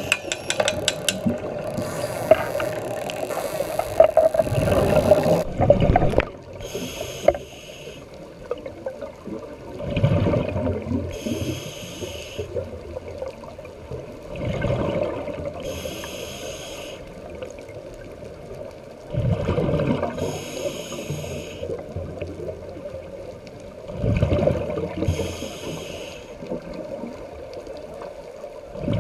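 Scuba diver breathing through a regulator underwater: a hiss on each inhale, then a rumble of exhaled bubbles, repeating about every five seconds.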